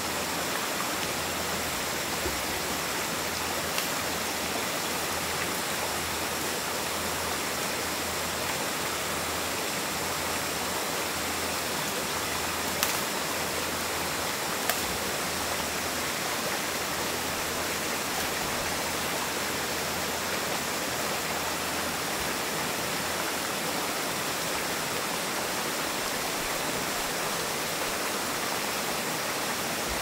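Steady, even rushing hiss of outdoor background noise with no clear source, broken by two short, sharp snaps about halfway through.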